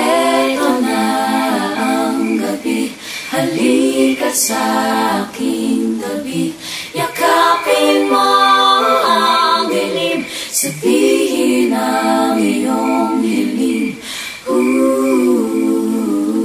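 Unaccompanied singing voices, with phrases that rise and fall and brief breaks between them, over a steady tick about twice a second.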